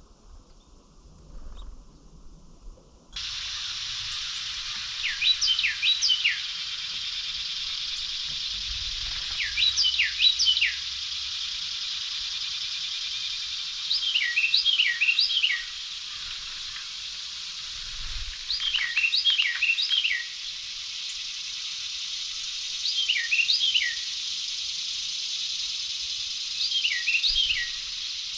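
A songbird singing a short phrase of quick, descending whistled notes, six times about every four to five seconds, over a steady high hiss that begins abruptly about three seconds in.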